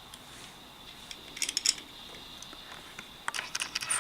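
Packaging being handled by hand: crisp clicks and rustles of packing peanuts and plastic, in a short flurry about a second in and a busier run near the end.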